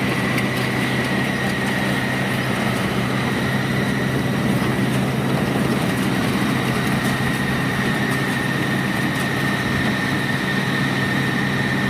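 Home-built rice combine harvester with a Yanmar 4T100 engine running steadily, with a constant high whine over the engine note.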